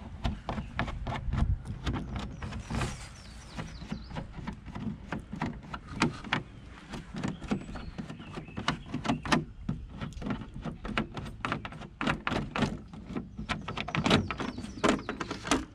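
Hands working the canopy on a polycarbonate RC boat hull, with many irregular clicks, taps and knocks of hard plastic as the canopy is unfastened and lifted off.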